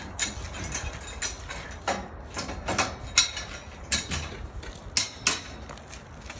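Metal scaffolding tubes and fittings clanking and clicking as they are fitted together on a modular scaffold: irregular sharp metallic knocks, about two a second, the loudest about three seconds in.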